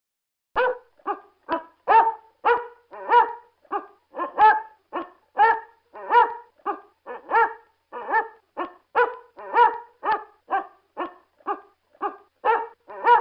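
A dog barking loudly in a steady, unbroken run of short barks, about two a second, starting about half a second in.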